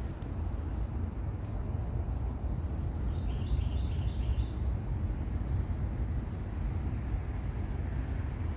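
Wild birds chirping: short high chirps scattered throughout, and a quick run of repeated notes about three seconds in, over a steady low rumble.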